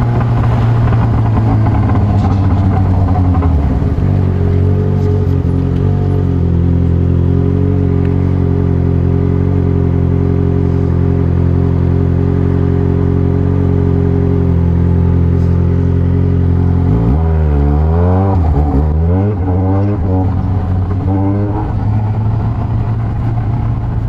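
Yamaha XJ6's 600 cc inline-four engine running while the motorcycle is ridden. It drops in pitch about four seconds in, holds steady, then rises and falls with the throttle near the end. It is making a strange noise that the owner traces to an exhaust seal leaking air.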